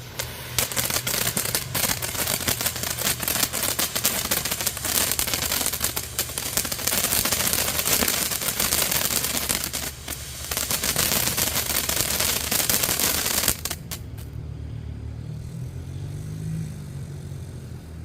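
Fireworks fountain burning: a loud, dense hiss packed with rapid crackles. It starts about half a second in, dips briefly about ten seconds in, then picks up again and cuts off abruptly a few seconds before the end.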